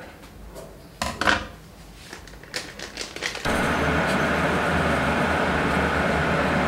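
A few short rustles and clicks of kitchen handling, then, starting abruptly about three and a half seconds in, the steady loud rushing rumble of an electric kettle heating water.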